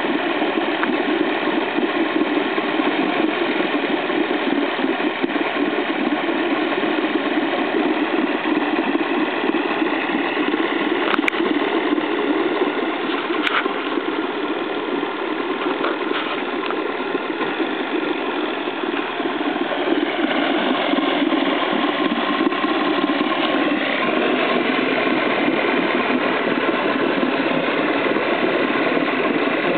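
Neptun 23 Soviet outboard motor, a two-cylinder two-stroke, running steadily. The sound eases off slightly a little past halfway and picks up again, with two short clicks about a third of the way in.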